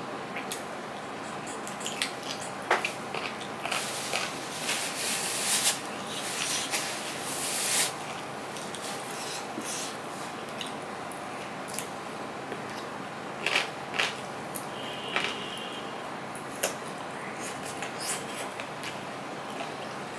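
Close-up hand-eating sounds: fingers squishing and mixing rice and fish on a steel plate, with chewing, over a steady background hiss. A run of louder, noisy eating sounds comes about four to eight seconds in, and a few sharp clicks follow later.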